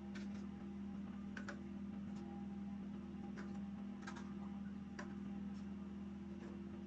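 Chicken eggs being set into plastic incubator egg trays, giving about six light, irregular clicks, over a steady low machine hum.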